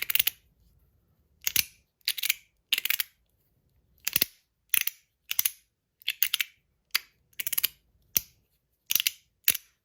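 Stainless-steel Mott Rhythm haptic slider fidget being slid back and forth, its plates snapping into place with sharp metallic clicks, often doubled, about every two-thirds of a second.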